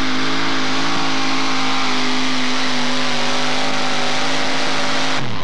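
Modified four-wheel-drive pulling truck's supercharged engine running wide open under load at a steady high pitch; about five seconds in the pitch falls sharply as the throttle comes off at the end of the pull.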